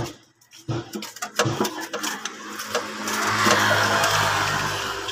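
Metal clicks and knocks from tool work under a car, then a steady mechanical whirring with a low hum for about two seconds near the end.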